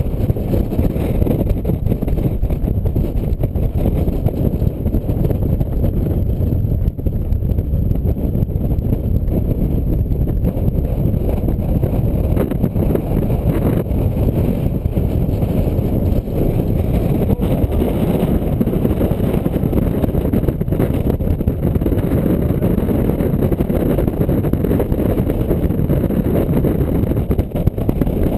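Wind buffeting the camera's microphone: a loud, steady, low rumble with no break.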